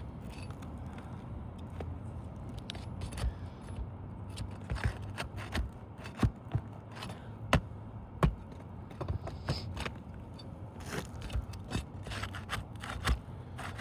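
Flat bar working under asphalt roof shingles to pull the roofing nails: irregular scraping with many sharp clicks and knocks of metal on nails and shingle.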